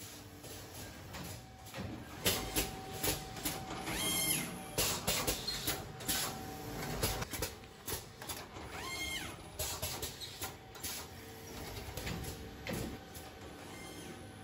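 Autimak M-402 T-shirt folding machine working through its folding cycle: repeated clacks and knocks of its folding plates, with twice a short whine that rises and falls about five seconds apart.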